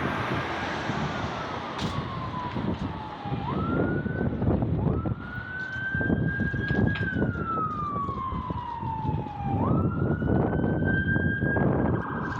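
Emergency vehicle siren in wail mode: a tone that rises and falls slowly, each sweep a few seconds long, over traffic noise.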